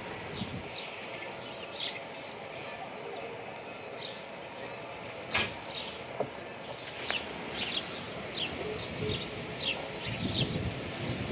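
Small birds chirping in short high calls. From about seven seconds a rapid, evenly repeated high note joins in, and a low rumble builds near the end, with a single sharp click about midway.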